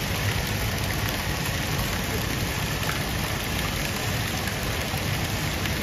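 Water from a small fountain jet splashing steadily into a pond, a continuous even patter.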